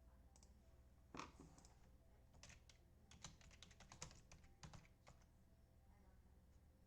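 Faint computer keyboard typing: a scatter of quiet, quick key clicks over a few seconds.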